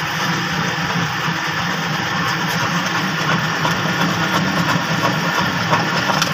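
Drill press running steadily, its twist drill cutting a hole into a thick steel plate: a constant motor hum with the noise of the bit cutting.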